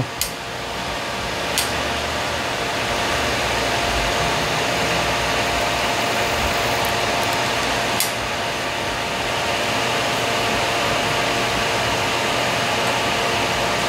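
Hair dryer blowing steadily, an even rush of air with a faint steady motor whine and a few light clicks.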